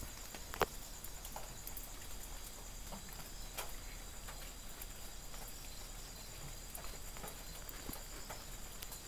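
Night insects trilling steadily at a high pitch, with scattered small clicks and one sharper click about half a second in.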